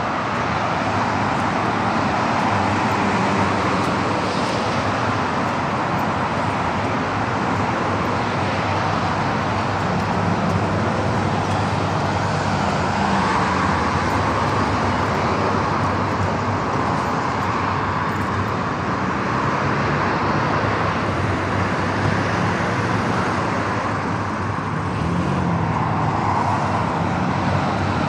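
Steady road traffic on a busy city boulevard: cars passing continuously, their tyre and engine noise swelling and fading without a break.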